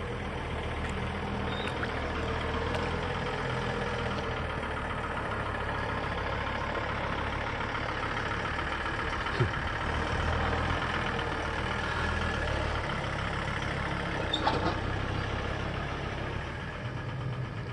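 Farm tractor's engine running steadily with a low hum, working in mud to get a stuck truck out.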